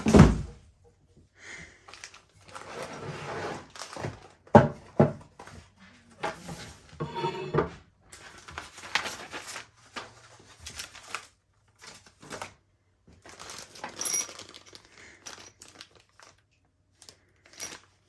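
Hardware being unpacked by hand: plastic bags of bolts and parts rustling and crinkling, with small parts clicking and knocking. A loud thump comes at the very start and a sharp knock about four and a half seconds in.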